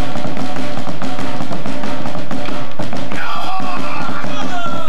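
A drummer playing a fast, dense rhythm of hard hand strikes on large upright painted wooden drums.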